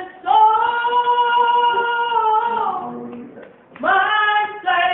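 A woman singing a hymn. She holds one long note for about two seconds, letting it slide down at the end, takes a breath, and starts the next note near the end.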